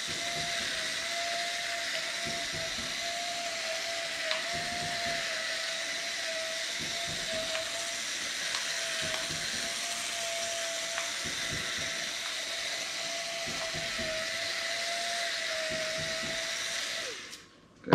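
Electric pepper mill grinding black pepper: its small motor runs with a steady hum and hiss, then cuts off about a second before the end.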